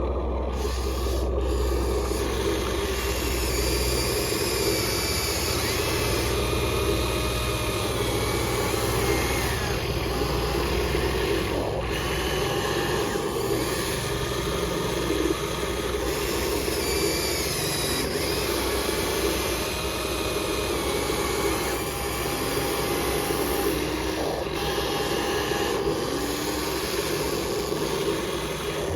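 Small electric motors of RC construction models whining as they work, the whines rising and falling in pitch over a second or so, over a continuous rasping, scraping noise.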